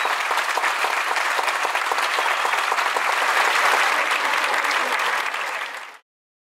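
Large concert-hall audience applauding: dense, steady clapping that fades and stops abruptly about six seconds in.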